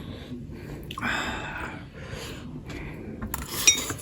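Close-up eating sounds: a short noisy mouth sound about a second in, then small clicks and a light ringing clink of tableware near the end.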